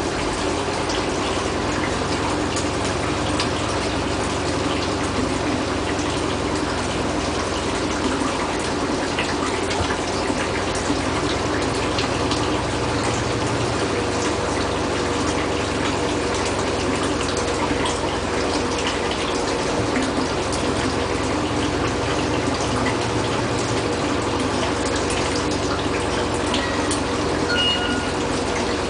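Bosch washing machine running, with water rushing steadily over a low, even hum from the machine.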